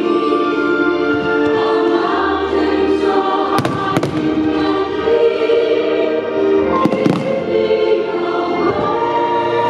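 Fireworks bursting over a choral music soundtrack, with sharp bangs about three and a half, four and seven seconds in.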